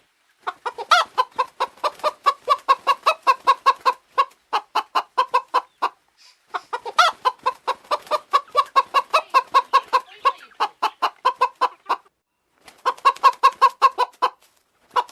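Domestic chickens clucking in rapid runs of short calls, about four a second, broken by brief pauses, with a couple of sharper, higher squawks mixed in.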